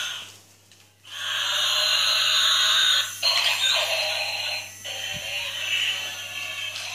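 Transforming robot car toy playing tinny electronic music from its small built-in speaker. The music cuts out briefly just after the start, resumes about a second in, and changes about three seconds in.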